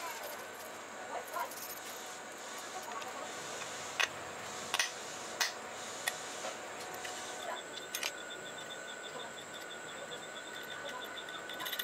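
Small metal speaker binding-post parts clicking and clinking in the hands as they are screwed together and fitted into a panel. A few sharper clicks stand out between about four and eight seconds in, over a steady faint hiss.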